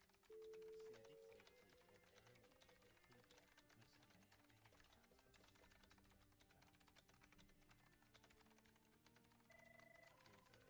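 Faint office ambience: computer keyboard typing clatter over soft, steady background music, with a short electronic telephone-style beep just after the start and another higher beep pair near the end.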